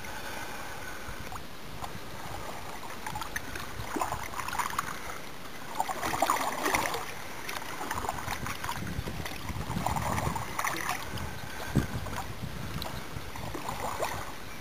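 Double-bladed kayak paddle dipping into calm sea water, a splash and trickle every few seconds as the blades alternate sides. Underneath runs a steady hiss of water.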